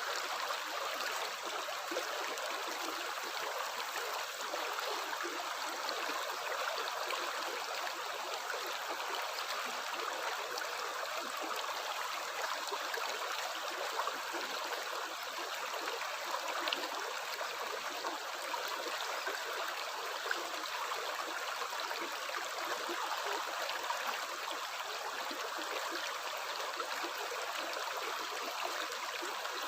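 Water running steadily in a stream, a continuous even rush with small splashing flecks throughout.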